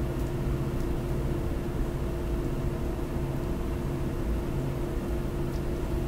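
Steady background hum with a faint even hiss: the room tone of the recording, with no speech.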